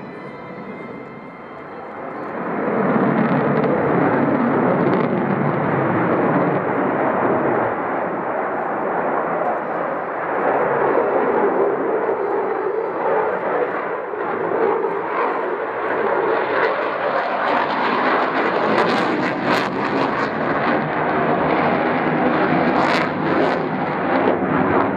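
Jet noise from a Eurofighter EF2000 Typhoon's twin Eurojet EJ200 turbofans during a display. It is fainter at first and swells about two seconds in to a loud, steady roar, with a few sharp cracks near the end.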